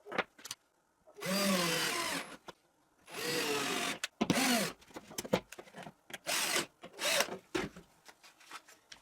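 Power drill driving screws through a metal drawer slide into plywood: two runs of about a second each, then a string of short bursts, the motor's pitch dropping as the screws seat.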